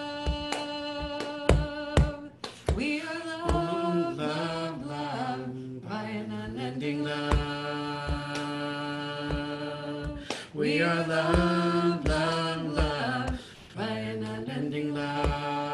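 Wordless, chant-like singing of a slow melody with long held notes over a steady percussive beat of about two strikes a second.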